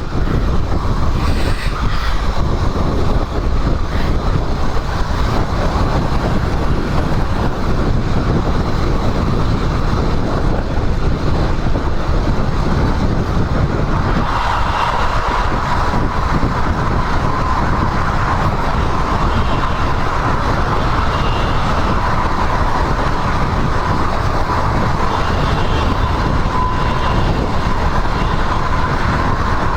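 A motorcycle being ridden: the Royal Enfield Himalayan's air-cooled 411 cc single-cylinder engine under a heavy, steady rush of riding noise, loud and unbroken. About halfway through, a steady high whine joins in and holds.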